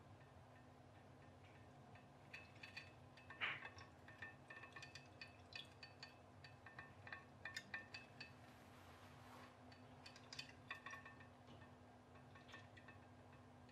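Faint, irregular clinks and ticks with a short ring from a home-made pop-pop boat, an aluminium mackerel tin with an aluminium tube coil, running in a glass dish of water. They start about two seconds in, the loudest comes a little later, and they thin out near the end.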